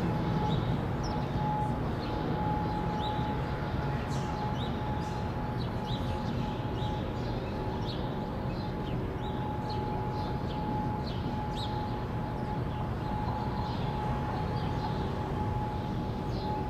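Federal Signal 2001-130 rotating electromechanical siren sounding its steady single-tone alert during a test. The one held tone swells and fades every few seconds as the siren turns.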